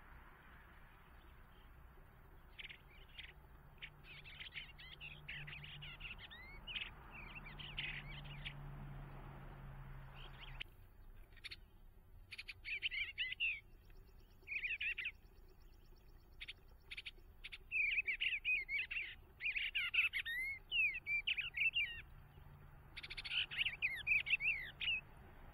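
Bluebirds singing: short warbled phrases given in repeated bursts. A steady hiss under the first half stops abruptly about ten seconds in.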